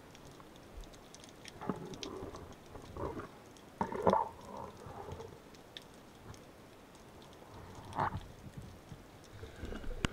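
Underwater handling noise: a few scattered, muffled knocks and swishes of the spearfisher's gear in the water, the loudest about four seconds in.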